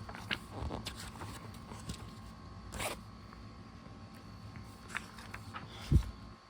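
Handling of a paper catalog: rustling and light clicks of pages, with a louder rustle about three seconds in and a dull thump near the end.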